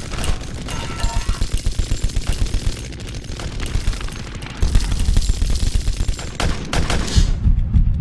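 Gunfight in an action film: rapid bursts of automatic gunfire, a fast even run of about ten shots a second lasting a couple of seconds, then further heavy bursts near the middle and end.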